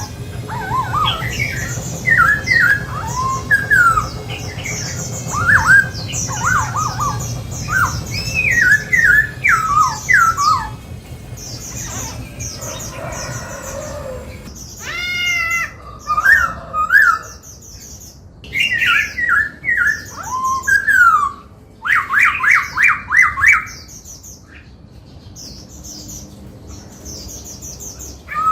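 Black-throated laughingthrush singing a loud, varied song of quick sliding whistled notes in rapid runs, broken by a few short pauses.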